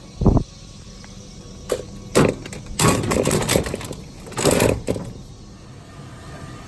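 Scrap metal being loaded into a pickup truck bed: a low thump just after the start, then a run of sharp clanks and about a second of rattling, scraping clatter, with a last clatter near the middle.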